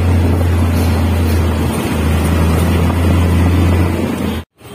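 Steady low rumble of wind on the microphone and engine noise from a moving motorbike, with a city bus running close alongside. Just before the end the sound cuts out abruptly, then returns much quieter.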